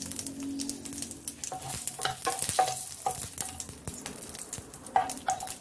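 Curry leaves and mustard seeds sizzling and popping in hot coconut oil, with a wooden spatula stirring and scraping across the nonstick pan from about a second and a half in.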